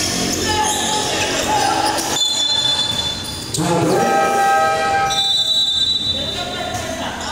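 Gym noise during a basketball game, with voices and two long horn-like tones of well over a second each, the second about three seconds after the first.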